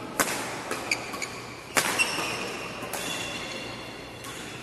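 Badminton rackets hitting a shuttlecock in a rally, sharp cracks at uneven intervals, with short high squeaks of court shoes between the hits.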